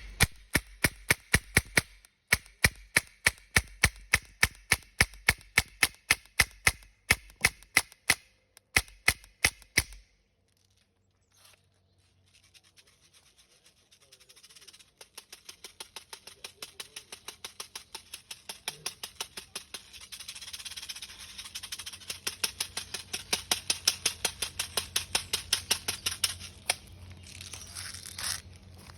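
Air gun firing strings of sharp pops, about three a second, with short breaks between strings. After a few quiet seconds a faster, denser string follows.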